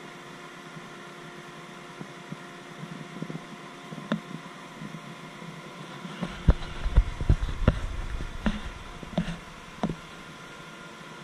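Steady machinery hum of a ship's engine control room, made up of many steady tones. About halfway through comes a run of close, sharp knocks and bumps lasting some four seconds, the loudest sound here.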